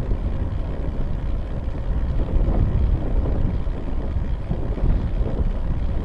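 Wind rushing and buffeting over the microphone of a bike-mounted camera while cycling along a road: a steady, uneven low rumble.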